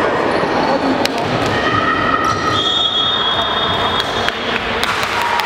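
Basketball game in play: a ball bouncing on the wooden court with sharp knocks, over a steady din of players and onlookers that echoes around a large sports hall.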